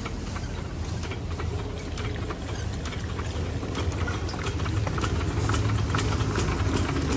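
Diesel water-pump-set engine running with a steady low knocking beat, growing gradually louder.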